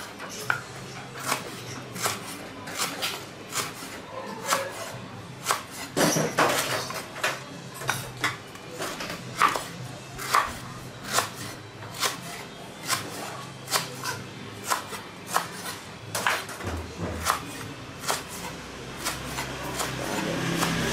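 Large kitchen knife slicing lemongrass stalks on a wooden cutting board: crisp knocks of the blade striking the wood, about two a second at an uneven pace.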